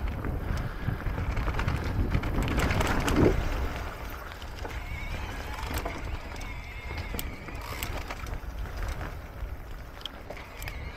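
Electric mountain bike riding fast over a dirt forest trail: a steady low rumble of wind and tyres with clicks and rattles from the bike, louder for the first four seconds or so.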